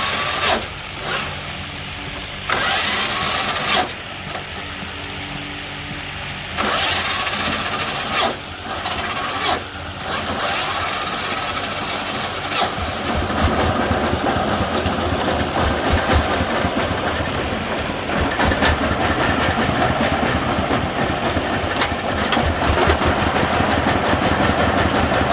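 Diesel engine running. Over the first ten seconds several short bursts of rushing noise cut across it. From about halfway the engine settles into a faster, rhythmic beat that grows slightly louder.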